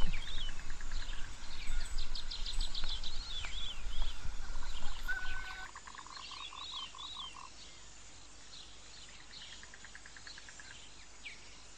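Frog croaks and bird chirps with pulsed trills, under a loud low rumble of wind on the microphone that cuts off about five and a half seconds in.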